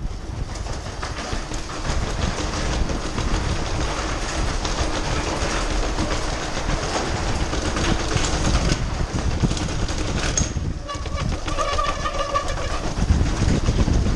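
Mountain bike rattling and clattering as it is ridden fast over brick paving and stone, the frame and parts jolting continuously under tyre and wind noise. A faint high tone sounds briefly about eleven seconds in.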